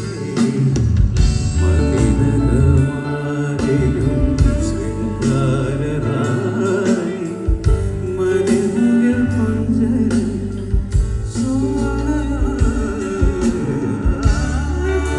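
Music with a singing voice, guitar and a strong bass line, played loud through a PA system during a sound check.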